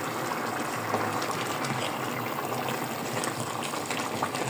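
A pot of chicken pelau (rice cooking in coconut milk and stock) simmering: steady bubbling with scattered small pops.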